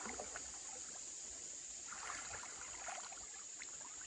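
Water sloshing and splashing irregularly around a child's legs as he wades through shallow river water.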